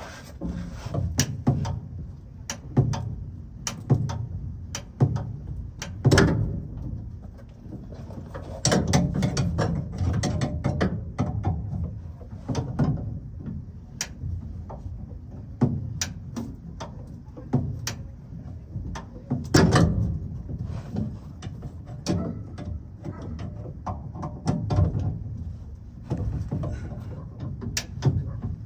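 Hand-tool work on a pickup truck's spare tire hoist: irregular sharp clicks and knocks of metal parts, some loud, in quick runs.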